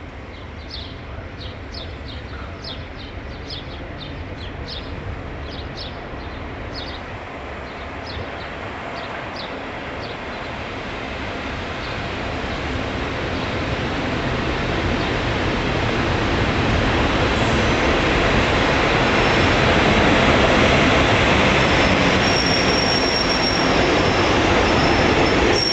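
Diesel locomotive hauling track-maintenance vehicles approaches and passes close by, its engine and rolling wheels growing steadily louder over the first twenty seconds. A thin high squeal, most likely from the wheels, comes in near the end.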